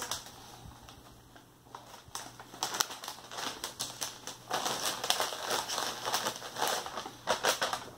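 Crinkly snack bag handled and tipped, cheese curls spilling out onto a paper plate. Scattered crackling starts about two seconds in and grows denser and louder in the second half.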